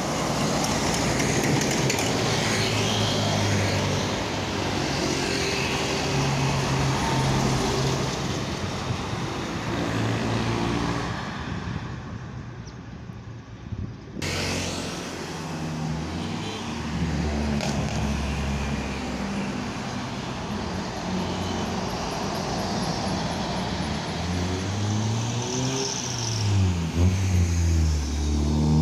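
Road traffic passing close by: cars, trucks and motorcycles with engine hum and tyre noise, broken by a sudden change about halfway through. Near the end a deep engine note rises and falls as a heavy vehicle draws near.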